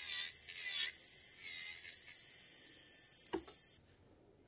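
Electric nail drill with a gel-removal bit running at speed, grinding gel off a nail: a steady high whine with a few brief wavering sweeps as the bit works the surface. A single click comes shortly before the sound cuts off abruptly near the end.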